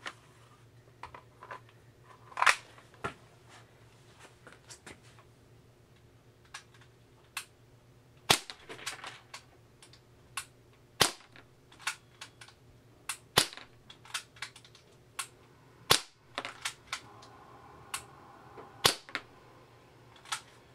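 Y&P MK23 airsoft gas pistol, running on green gas, firing single shots a few seconds apart: sharp cracks with lighter clicks and ticks between them.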